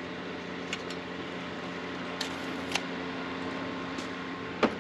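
A steady mechanical hum, like a fan running, with a few light clicks and taps spread through it, the last and loudest near the end.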